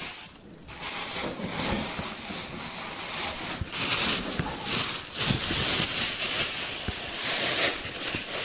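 Thin plastic bags crinkling and rustling as they are handled and pulled over the proofing baskets. The rustling starts about a second in and grows louder from about four seconds in.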